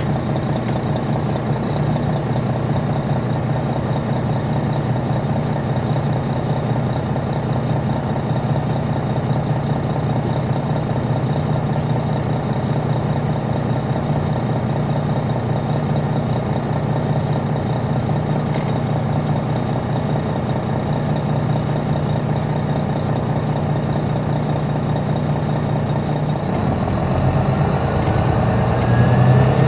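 2002 MCI D4000 coach's Detroit Diesel Series 60 diesel engine, heard from on board, running at a steady speed. Near the end it gets louder and the revs climb as the bus accelerates.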